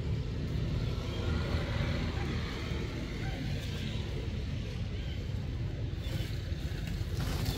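A low, steady, engine-like hum of a motor running in the background.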